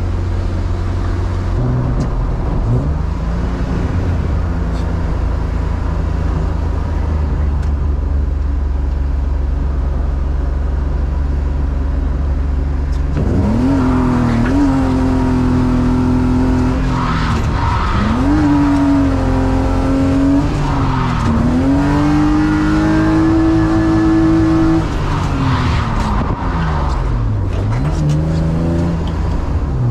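BMW E36 328is's straight-six engine cruising steadily, then pulling hard under full throttle from about halfway in, the revs climbing and dropping back several times as it changes gear. Near the top of the last pull the revs hold flat and then drop suddenly, the engine cutting out under full throttle, which the driver blames on fuel cut.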